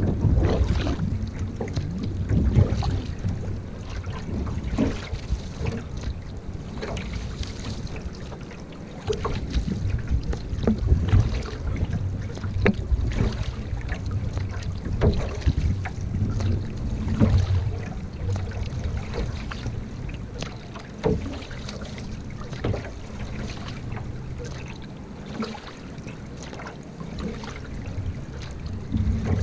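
Single-blade canoe paddle strokes pulling through lake water, a splash roughly every two seconds, over a steady low rumble of wind on the microphone.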